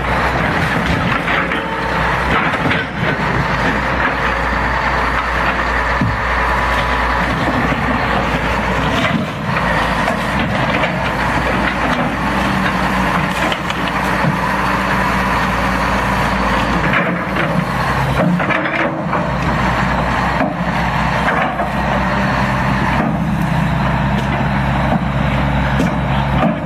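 Hydraulic excavator's diesel engine running steadily under load while its bucket crushes a wood-framed structure. Repeated cracks and crunches of splintering wood and breaking panels are heard throughout.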